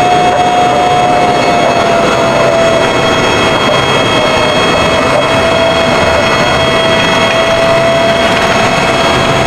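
M1A2 Abrams tank's AGT1500 gas-turbine engine running: a loud, steady rush with a high turbine whine that dips slightly in pitch a second or two in.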